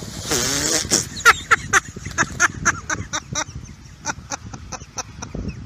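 A dog splashing through shallow floodwater: one big splash, then a quick run of splashes about four a second that fade out after about three and a half seconds as it begins to swim.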